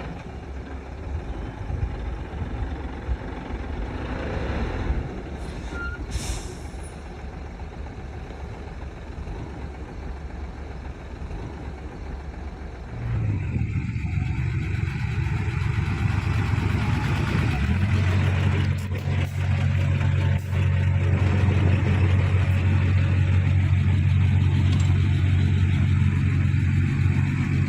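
Heavy diesel machinery working: a bulldozer and a dump truck running, with a short hiss about six seconds in. From about thirteen seconds a deep, steady engine drone comes in louder and holds.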